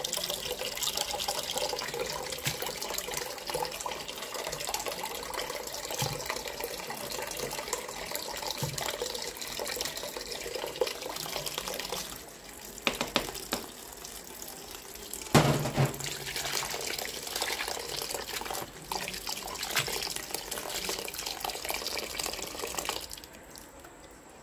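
Tap water running into a sink basin of durian flowers being rinsed, with a couple of knocks against the basin around the middle. The running water stops near the end.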